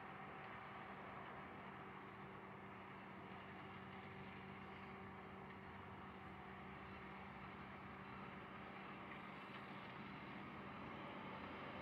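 Faint, steady drone of distant diesel locomotives and industrial plant machinery, with a few held low tones, growing slightly louder near the end as the freight train approaches.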